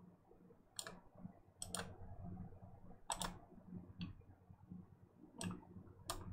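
Computer mouse button clicks, about eight sharp clicks spread over a few seconds, some in quick pairs.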